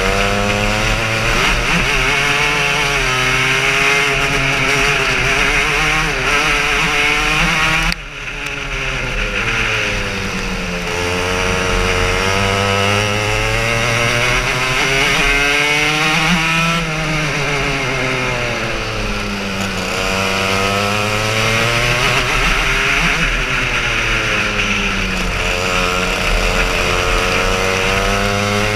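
Racing kart engine heard from the kart's onboard camera, its revs rising and falling in repeated swells as the kart accelerates and slows. About eight seconds in the engine note drops suddenly, then builds back up. A steady hiss runs underneath.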